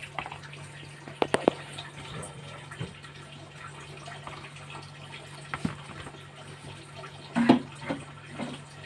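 Small objects being handled during a child's pretend cooking play: light clicks and knocks, three quick ones about a second in and a louder knock near the end, over a steady low hum.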